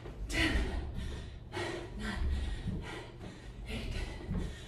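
A woman breathing hard through a cardio exercise, loud gasping breaths about once a second, over low thuds of her feet jogging on carpet.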